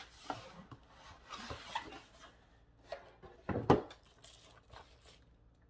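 Cardboard scraping and rustling as a boxed figure is slid out of a cardboard mailing box, in faint scattered strokes, with one sharp, louder knock about three and a half seconds in.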